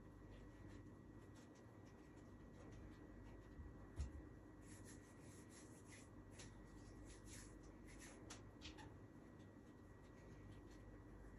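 Near silence: faint rustling and light clicks of handling noise, with a soft thump about four seconds in.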